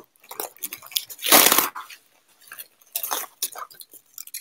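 Plastic bubble wrap packaging crinkling and rustling in irregular bursts as it is pulled open by hand, loudest about a second and a half in.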